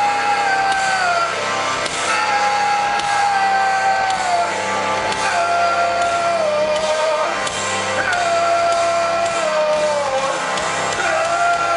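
A live rock band playing loudly, with distorted electric guitar and drums. A high melodic line repeats a short phrase that steps down in pitch every two to three seconds.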